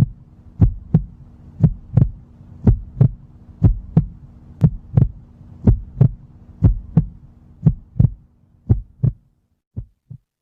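Heartbeat sound effect: paired lub-dub thumps about once a second over a low steady hum. Near the end the hum stops and the last beat is fainter.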